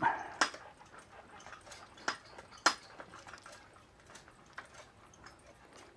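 A few sharp clicks and knocks at irregular intervals from handling the hydraulic motorcycle lift jack as it is set in position under the bike.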